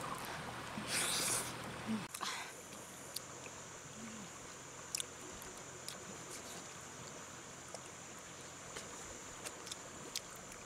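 A person eating cooked fish by hand. There is a short breathy mouth sound about a second in, then a few faint small clicks as the fish is picked apart, over a steady high-pitched hum.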